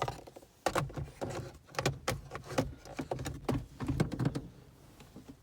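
Plastic centre-console trim pieces being handled and fitted back around the shifter: a string of irregular clicks, knocks and rattles.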